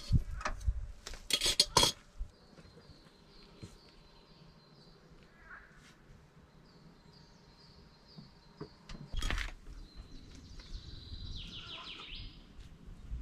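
Small birds singing: a run of short, evenly repeated high chirps, then a quick falling series of high notes near the end. Sharp clinks and knocks like dishes being handled come in the first two seconds and again about nine seconds in.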